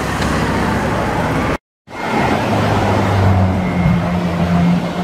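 Car engines and street traffic running, broken by a short dead gap about a second and a half in. After it, a V12 supercar engine idles with a steady low drone.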